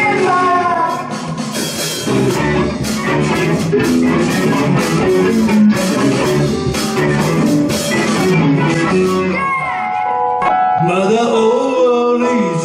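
A live rock band playing an instrumental passage: drums and electric guitar over bass, with the drum hits dropping away about three-quarters of the way through, leaving sustained chords and bending guitar lines.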